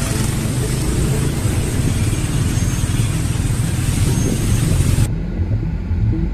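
Rushing road and wind noise of a vehicle moving along rain-wet streets, picked up by a phone's microphone. About five seconds in, it cuts to a duller, quieter recording.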